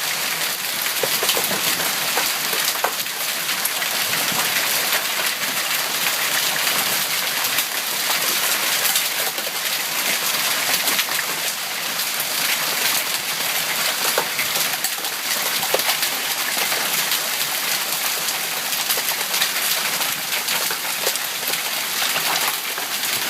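Heavy rain mixed with hail pelting down: a steady dense hiss dotted with many small, sharp impacts.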